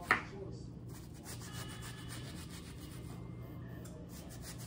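Chef's knife slicing through a white onion and knocking on a bamboo cutting board: repeated short cutting strokes, with one sharp knock just after the start.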